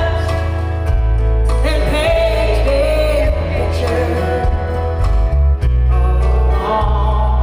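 Live country band playing with a woman singing lead: acoustic guitar, electric bass and drums under a sung melody, with heavy bass.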